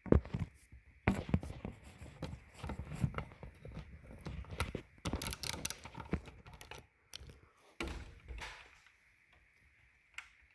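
Irregular clicks and knocks of a hand tool working a 5/16-inch bolt out of a garage door opener's housing, mostly metal tapping and scraping. The sounds die down about eight and a half seconds in.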